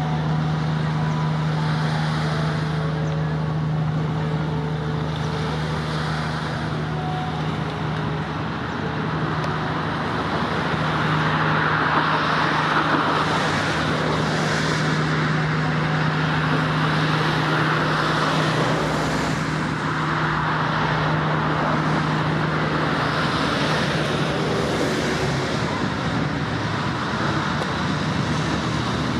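Steady road traffic noise, with a constant low hum underneath that fades out near the end.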